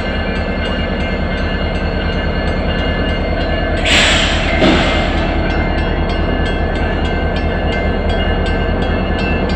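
Diesel freight train passing close by: a steady rumble of the locomotive and rolling cars, with a louder rush of noise about four seconds in as the lead locomotive goes past.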